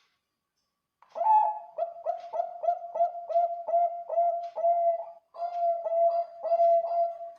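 Zebra dove (Bangkok perkutut) singing. After about a second of silence, a long run of quick rolling coos comes at roughly three a second, with a brief break about five seconds in.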